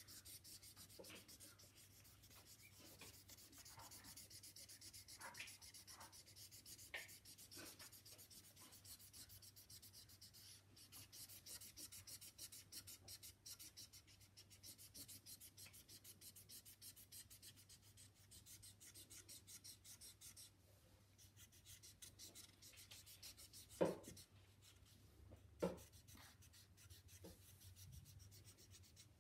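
Scented felt-tip marker scratching quickly back and forth on paper as an area is coloured in, quiet and steady. Two sharp knocks about three-quarters of the way through stand out above it.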